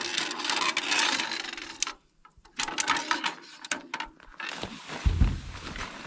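Tent pole being fed through a dome tent's nylon sleeve: the fabric rustles and scrapes, with scattered light clicks and knocks of the pole. There is a short pause about two seconds in, and a low rumble about five seconds in.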